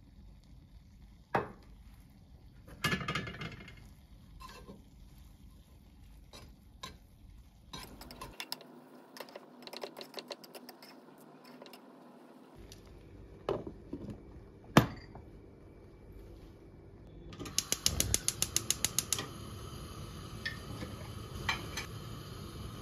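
A slotted metal skimmer and utensils knocking and scraping against a nonstick pot while rice and lentils are tossed together, with scattered sharp clinks and a stretch of quick light ticking. Near the end comes a fast, even run of about a dozen clicks, followed by a steady hum.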